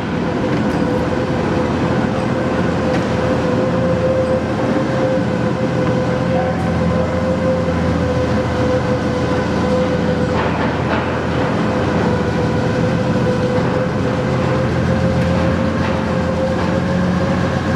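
Large Nishimori engine lathe running steadily, its spindle drive and geared headstock giving a constant rumble with a steady whine.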